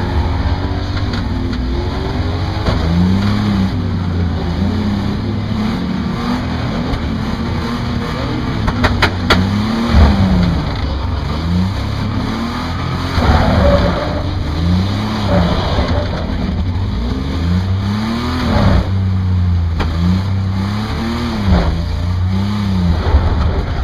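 Competition car's engine heard from inside the car, repeatedly revving up and dropping back every second or two as it accelerates and slows for corners, with a few brief knocks.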